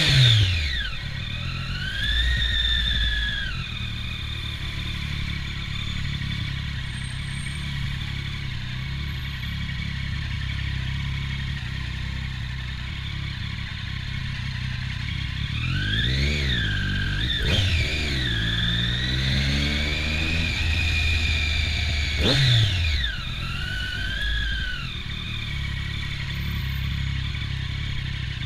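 Triumph Daytona 675's three-cylinder engine, fitted with an Arrow aftermarket exhaust, running at low revs at a crawl. Short rises and falls in revs come at the very start, a couple of seconds in, in a cluster past the middle, and once more about three-quarters through.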